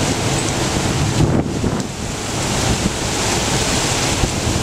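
Rough sea surf breaking steadily, with wind buffeting the microphone.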